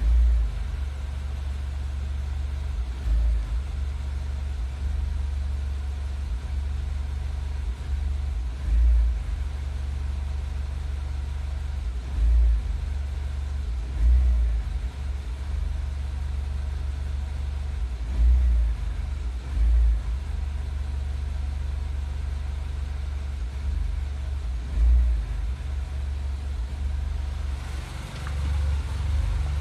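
2008 Mini Cooper S (N14) turbocharged 1.6-litre four-cylinder engine idling roughly, the idle surging up briefly every few seconds at irregular intervals. It swells louder near the end. This is an idle-surge fault whose cause the owner does not know.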